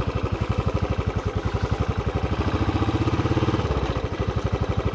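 Royal Enfield Classic 350's single-cylinder engine running at low speed on a dirt track, with an even beat of about a dozen firing pulses a second. The beat strengthens a little in the middle and eases about four seconds in.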